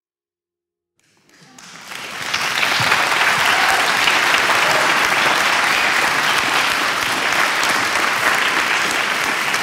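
Crowd applause, fading in about a second in and then holding steady.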